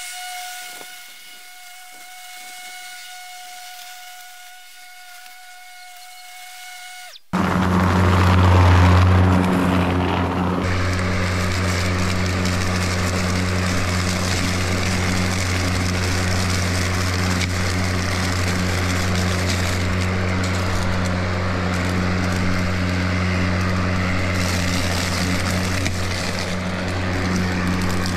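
Stiga Twinclip 950 cordless lawnmower running over fallen leaves. It starts as a steady, fairly quiet whine heard from a distance. About seven seconds in it changes suddenly to a much louder close-up steady hum with a rushing noise as the mower cuts and collects the leaves.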